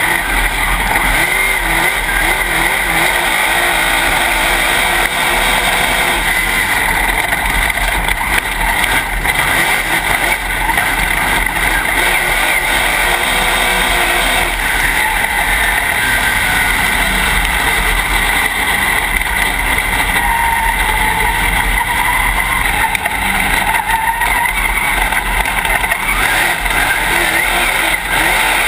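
Dirt late model's V8 racing engine running hard, heard from inside the cockpit as one loud, steady, unbroken din mixed with wind and track noise.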